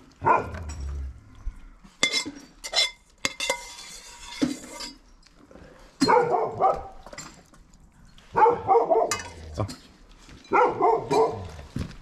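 Dogs barking in several bouts, the loudest three in the second half, with sharp clinks of a metal ladle against a pot in between as food is served out to them.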